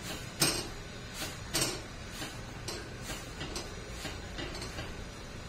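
Light clicks and taps, about two a second and a little uneven, as a ragi roti is pressed around its edges with a cloth on a hot iron tava; the two loudest come about half a second and a second and a half in, over a steady low hiss.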